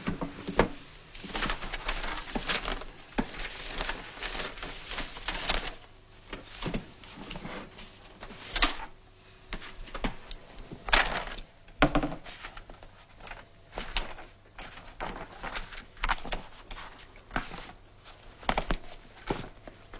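Handling noises in a small room: a box and loose papers being moved and leafed through, with scattered light knocks and rustles.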